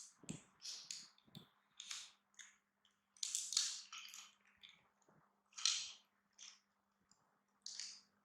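Pets crunching dry snacks: about a dozen short, irregular crisp crunches, the loudest about three and a half and six seconds in.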